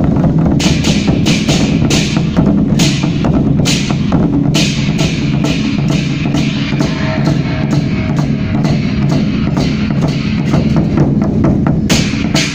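Chinese temple-procession percussion: big drums beaten continuously, with cymbal clashes in a regular beat a few times a second.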